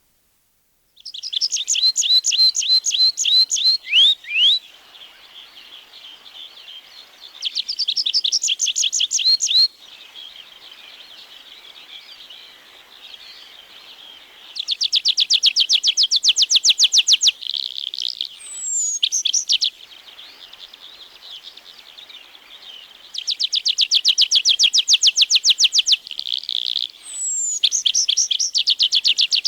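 Tree pipit singing: four song phrases, each a fast run of repeated high notes, the later ones ending in slurred notes falling in pitch.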